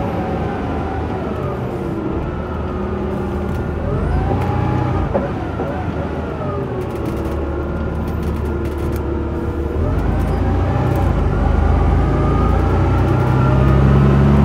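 Cummins LT10 six-cylinder diesel engine of a Leyland Olympian double-decker bus running under way. Its note rises and falls about four seconds in, then climbs and grows louder over the last few seconds as the engine pulls harder.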